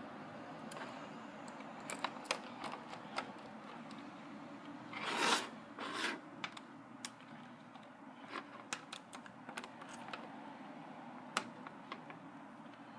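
Scattered small clicks and taps of an Acer Aspire laptop's parts being handled and fitted while its hard drive is swapped, with a louder scraping sound about five seconds in.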